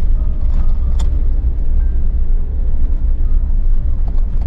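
Suzuki Jimny driving slowly over a rough grass track, heard from inside the cab: a steady low rumble of engine and tyres, with a sharp knock about a second in.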